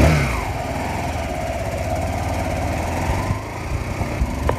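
Motorcycle engine running as the bike rides along, heard from the pillion seat: a steady low rumble with an even pulse. A single sharp click sounds just before the end.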